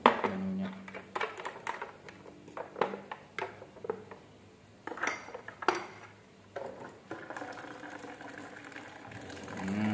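A metal spoon and glass mugs clinking and knocking in a run of sharp, irregular clinks. Near the end a steadier sound follows as water runs from a water dispenser's tap into a glass mug.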